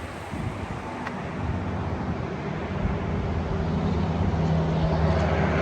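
Highway traffic on Interstate 40, a steady drone of tyres and engines with a low hum that grows louder.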